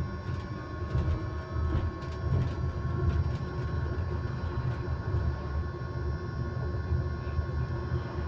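Electric bus running, heard from inside: a low, uneven rumble from the road and body, with a steady whine held at one constant pitch over it, and a few faint clicks and rattles.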